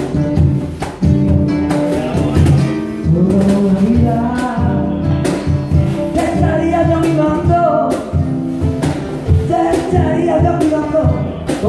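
Live flamenco-style music: a man singing with an acoustic guitar, while a cajón box drum played by hand taps out a quick rhythm of sharp hits.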